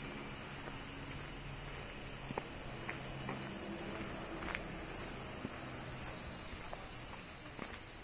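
Cicadas singing in chorus: a steady, high-pitched drone that swells a little about halfway through.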